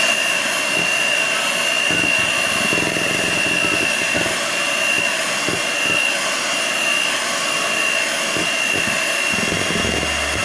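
Electric hand mixer running at low speed, its twin beaters whipping thick cream with condensed milk: a steady motor whine with a constant high-pitched tone.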